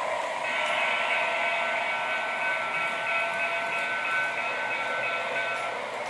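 A model train's sound unit sounding one long whistle, a steady chord of several tones that starts about half a second in and holds for about five seconds, over the steady running noise of the model trains on the track.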